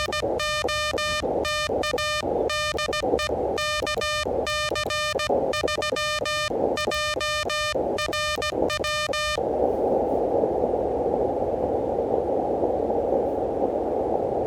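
Elecraft KH1 transceiver's Morse code sidetone: a buzzy tone near 600 Hz keyed in dots and dashes as CW is sent. About nine seconds in the keying stops and the receiver's steady band hiss comes up.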